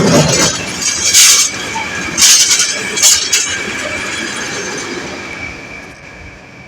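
Freight train rolling past, with three sharp bursts of hissing noise in the first few seconds over a thin, steady high-pitched wheel squeal, then fading as it moves away.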